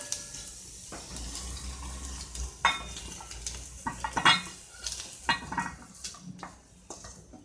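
Wooden spatula scraping ghee-fried baby potatoes out of a frying pan into a steel bowl: a string of scrapes and knocks as the potatoes drop in, several with the metal ringing briefly, loudest about four seconds in.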